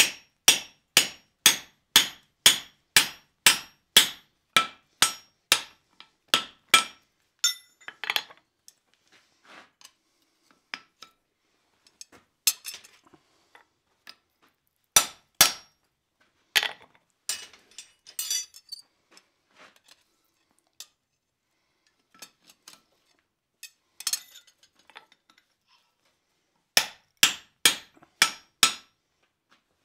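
Hand hammer striking a punch driven into a glowing-hot steel block on the anvil: sharp, ringing blows about two a second for the first seven seconds. Then come scattered lighter taps and clinks with a few single blows, and a quick run of five blows near the end.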